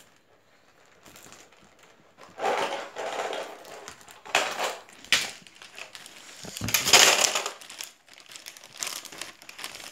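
Plastic courier mailer bag crinkling and rustling as it is handled and pulled open by hand, in several separate bursts, the loudest about seven seconds in.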